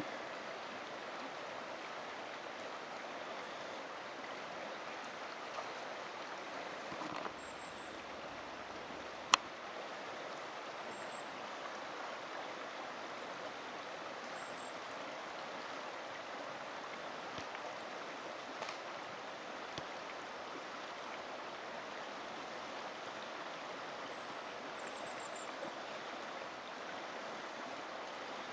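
Steady rush of a flowing river. A single sharp click stands out about nine seconds in.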